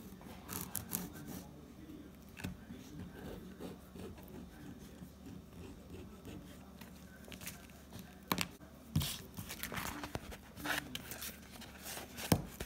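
Pen scratching as it traces around a template on stiff fabric-covered cardstock, with the sheet rustling and scraping as it is handled and a sharp knock near the end.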